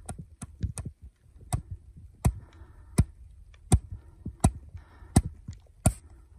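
Regular hand taps on an avalanche shovel blade laid on top of an isolated snow column, loading it in a snowpack stability test. There are a few light ticks at first, then seven sharp taps about 0.7 s apart.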